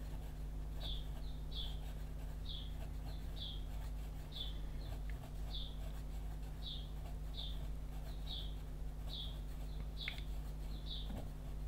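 Pencil scratching on paper in short quick strokes, often in pairs, about one or two a second, as small half-circle scales are drawn. A low steady hum runs underneath.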